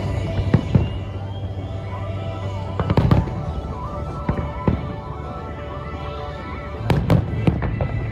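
Aerial fireworks shells bursting in irregular loud bangs, a few near the start, a cluster about three seconds in and another about seven seconds in, with music playing underneath.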